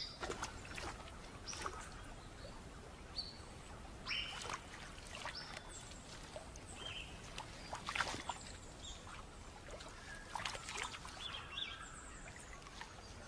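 Riverside ambience: birds giving short, scattered chirps over faint running water, with a few brief splashes.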